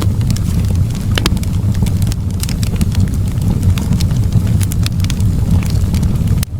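Wood fire crackling in a fireplace: scattered sharp pops and snaps over a steady low rumble of the flames, with a momentary drop-out near the end.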